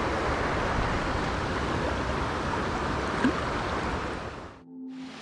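Mountain trout creek rushing, a steady, even wash of flowing water that cuts off abruptly about four and a half seconds in; faint held music notes follow.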